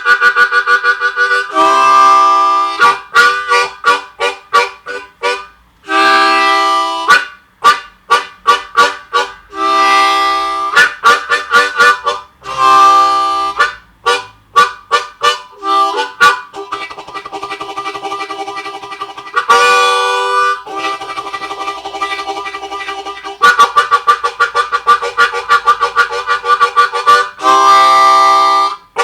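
Hohner Special 20 diatonic harmonica imitating a train: stretches of quick, evenly repeated chord pulses for the chugging, broken several times by held chords about a second long for the whistle.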